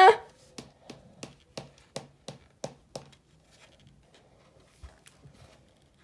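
Light taps, about three a second for roughly three seconds, then a few faint scattered ticks: a fingertip tapping on the pages of an open hardcover book.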